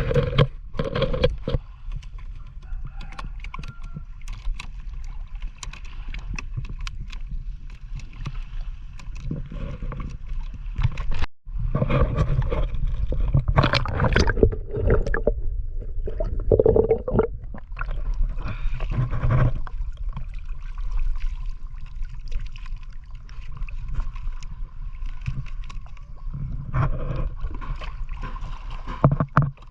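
Water sloshing and splashing against a small boat, over a steady low rumble.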